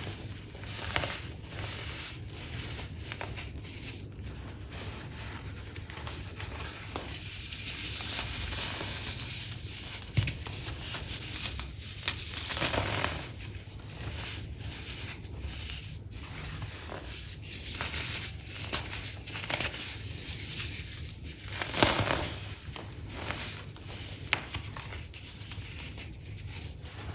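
Compacted baking soda being crushed: a steady run of crunchy crackles, with several louder crunches now and then.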